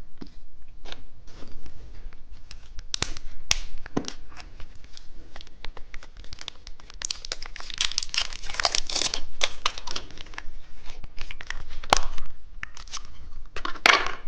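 Plastic candy wrapper being torn open and crinkled by hand, a stream of irregular crackles that grows busier in the middle, with a loud crinkle near the end.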